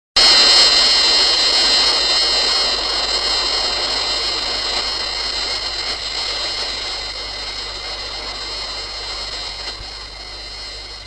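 Gigan kaiju film sound effect: a long, high whine made of several steady tones over a rushing noise. It starts abruptly and fades slowly over about eleven seconds.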